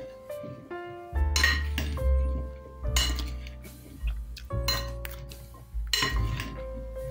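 Metal spoons clinking and scraping against a glass mixing bowl as chopped vegetables are tossed, over background music with a steady bass line.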